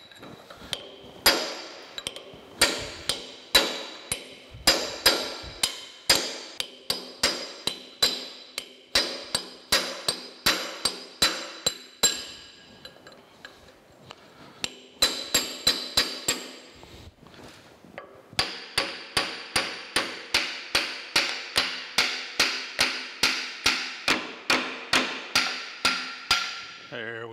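Hammer blows on a brass punch, about two a second, each with a short metallic ring, driving a stuck, rusted shaft down out of the cast-iron frame of an old J. A. Fay band saw. The blows pause twice and then keep on steadily near the end.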